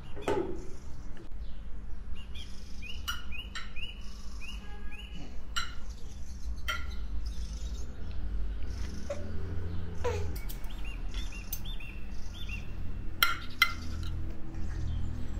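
A metal fork and spoon clink and scrape on a ceramic plate in scattered, sharp taps as food is cut and scooped. Runs of short, high chirps are heard twice, once early and once later on.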